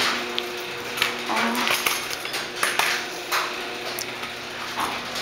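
Irregular light clinks and knocks, one or two a second, over a steady low hum.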